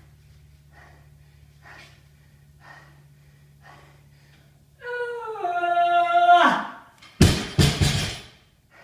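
Person breathing hard, then letting out a long strained yell that sags in pitch, then a barbell hitting the floor with several loud bangs in quick succession near the end.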